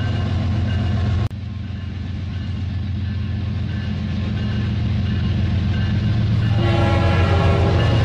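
RailKing toy train running on its plastic track: a steady low motor hum with a fast rattle, and a held train-horn sound from about six and a half seconds in. The sound drops out for a moment just after a second in.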